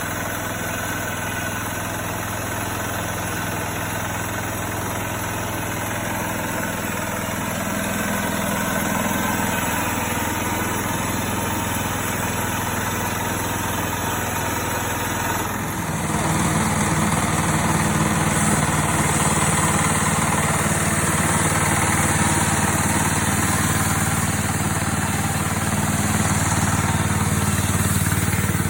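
Range Road 5026 portable sawmill running steadily under its small gasoline engine. About halfway through, the sound steps up louder and fuller and stays there.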